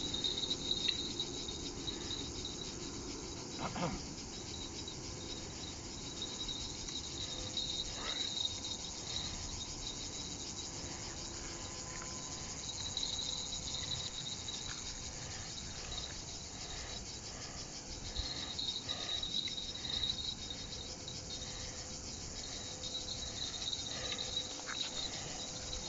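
Summer insects chirring steadily, a high continuous drone that swells and fades at times.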